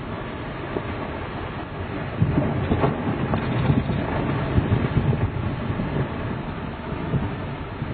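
Ice breaking off an iceberg arch and falling into the sea: a low rumble with irregular cracks and splashes that grows louder about two seconds in.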